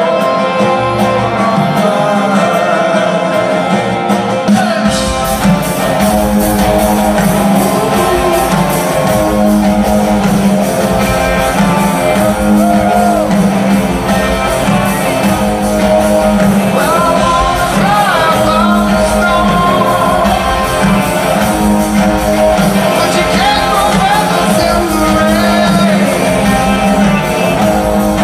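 Rock band playing live in an arena: a male voice singing over guitars, with the bass low end coming in about five seconds in.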